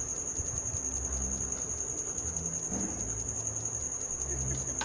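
A cricket trilling steadily at a high pitch, with a low hum underneath.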